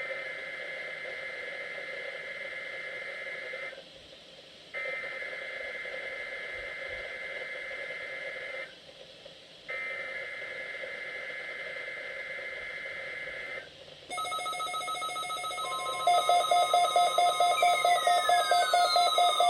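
NOAA Weather Radio SAME digital data bursts: three buzzy two-tone bursts of about four seconds each, separated by gaps of about a second. Near the end, weather radio receivers start sounding their alert alarms, with rapid pulsing beeps over a steady tone.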